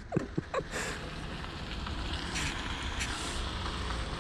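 A car approaching slowly on a dirt road: a quiet engine and tyres on the gravel make a low, steady rumble that grows gradually louder.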